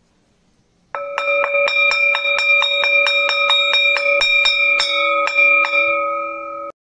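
School bell rung rapidly, about four or five strikes a second, starting about a second in and ringing on steadily before cutting off suddenly near the end.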